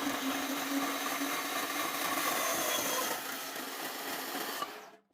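Metal band saw running and cutting through steel square tubing: a steady motor hum with the hiss of the blade in the steel, dropping slightly about three seconds in and stopping suddenly near the end.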